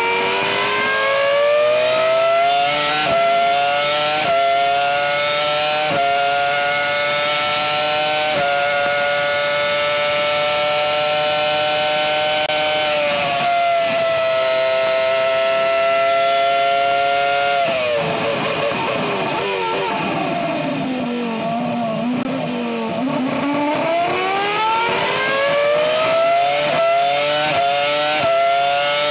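Onboard sound of a BAR Formula One car's V10 engine at racing revs: the pitch climbs and drops back in quick steps as it changes up through the gears, then holds high and near-steady on a long flat-out stretch. About two-thirds through it falls away through several downshifts to low revs for a slow corner, then climbs again through the gears.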